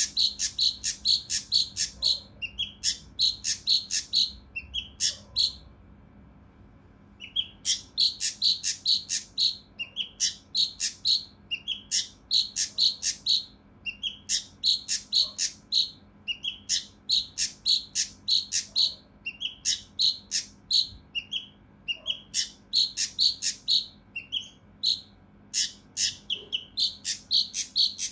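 Kinoi (cucak rante mas), a bulbul, singing in rapid, harsh runs of sharp repeated notes, about three to four a second, with a short break about six seconds in. This is the coarse, close-packed 'tembakan' of an agitated bird.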